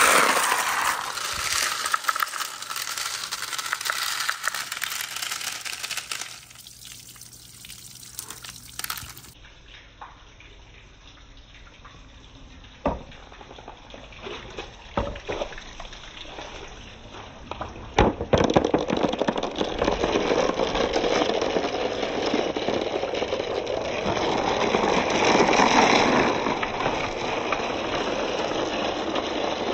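Water rushing through a marble-run waterslide, with marbles knocking and clicking on the course. The water drops away for a stretch in the middle, where only scattered single knocks are heard, then comes back steadily.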